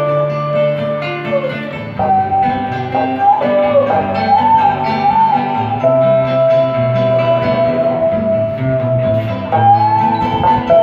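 Traditional Vietnamese ensemble music: plucked string instruments over a bass line, under a lead melody that holds long notes and slides between pitches.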